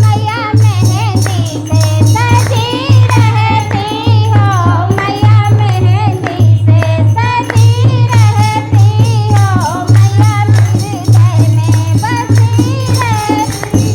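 Hindi devotional song to the goddess: a wavering melody over a steady, even drum beat, with rattling jingle percussion.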